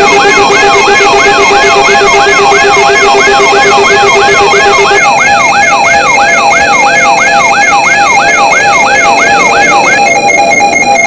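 Electronic alarm sound effect: a siren-like yelp tone sweeping rapidly up and down, about two and a half times a second, over layered steady and pulsing beeping tones. A low pulsing tone drops out about halfway, and the sweeping stops near the end.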